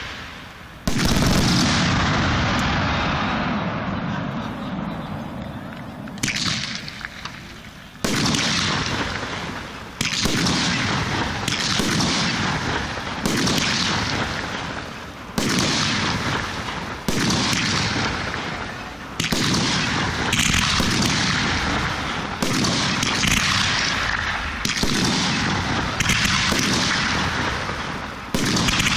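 Professional fireworks display: aerial shells bursting one after another, about fifteen loud booms roughly every one and a half to two seconds, each trailing off over a second or two.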